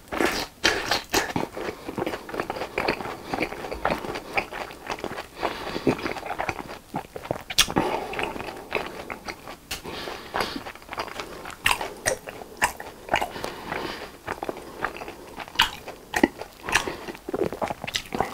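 Close-miked chewing of a mouthful of fried cheese snack: crisp crunches with wet mouth sounds and scattered sharp clicks throughout.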